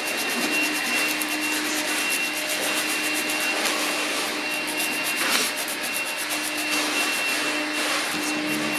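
A wooden fork's tines rubbed on sandpaper laid over a table corner, with quick, even back-and-forth strokes several times a second. The fork's chipped tip is being hand-sanded on its outer side to bring it back to a point.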